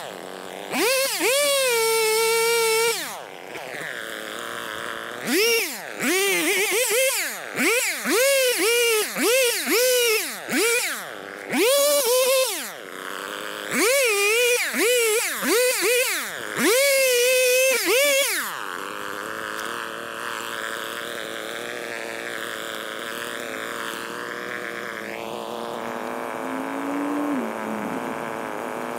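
Chainsaw revving up and down over and over while cutting cedar, the revs coming quick and high-pitched in fast-forward playback. About two-thirds of the way through it gives way to a quieter steady hum.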